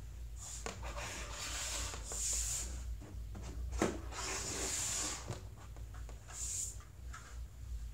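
Built Lego model being handled, slid and lifted off a wooden tabletop: plastic scraping and rubbing on wood in two stretches, with a knock about four seconds in.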